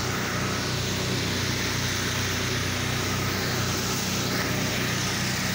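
Gas engine of a pressure-washing rig running steadily at a constant speed, with an even hiss over its hum.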